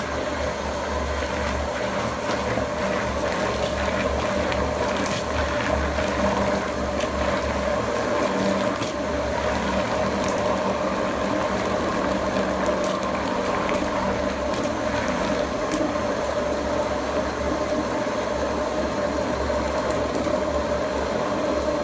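An 8 lb vertical food cutter-mixer running steadily, its motor humming as the blades chop meat into a paste in the stainless-steel bowl.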